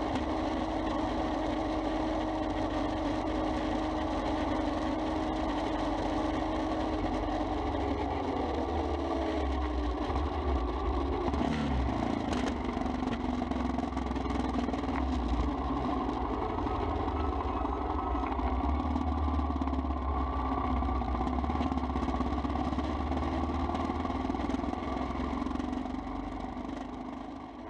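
Royal Enfield Himalayan's single-cylinder engine running as the motorcycle rides along; the engine note falls once about nine seconds in, then holds steady, and the sound fades out near the end.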